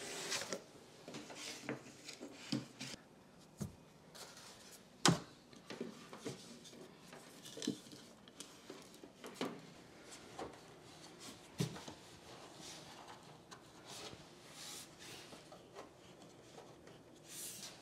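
Scattered soft knocks and rubbing as a Roku Streambar Pro soundbar and its 3D-printed PLA side stands are set down and shifted into place on a TV stand shelf. The loudest knock comes about five seconds in.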